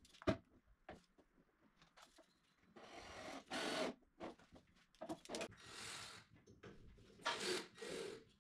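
Handwork sounds: a sharp tap near the start, then irregular bouts of scraping and rubbing as the metal frame of a pull-out spice basket is handled on a white cabinet panel and the panel is marked with a pencil.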